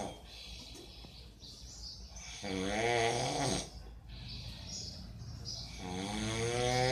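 A man snoring loudly in his sleep: one long snore about 3 s in and another beginning near the end, roughly three and a half seconds apart, with softer breathing between them.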